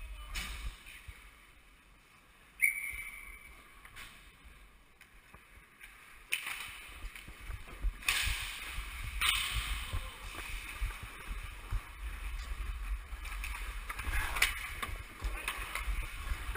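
Hockey skate blades scraping and carving the ice, with sharp clacks of sticks and puck. One loud clack about three seconds in rings briefly. The scraping grows busier and louder from about six seconds in, with more clacks near eight, nine and fourteen seconds.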